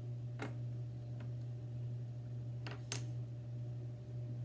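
Sharp plastic clicks of light-up Lego bricks being handled and pressed together: one about half a second in, a faint one a little later, and two close together just before three seconds. A steady low hum runs underneath.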